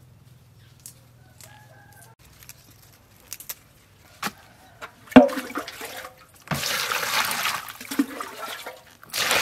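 Lettuce leaves being washed by hand in a plastic basin of water: quiet at first, then loud splashing and sloshing from about five seconds in, in two long spells.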